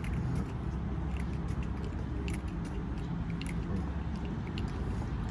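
Small items rattling and clicking as they are handled and moved about, a few light ticks a second at irregular spacing, over a steady low rumble.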